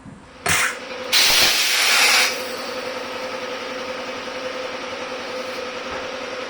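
A short sharp burst, then a loud rush of hissing lasting about a second, settling into a steady hiss with a faint whistle, like pressurised air or steam escaping.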